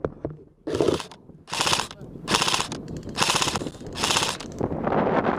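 Airsoft electric rifle firing five short full-auto bursts in quick succession, each a rapid rattle of shots about half a second long.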